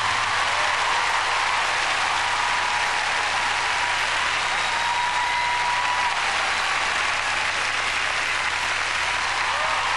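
Audience applauding steadily, a dense even clapping that greets the end of a figure skating performance.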